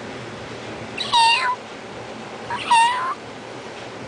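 Two high-pitched kitten cries, about a second and a half apart, each falling in pitch and then holding level before cutting off.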